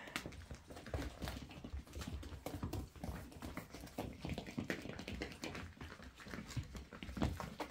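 Toy Poodle puppies' paws pattering and scuffling, with many light, irregular taps of claws.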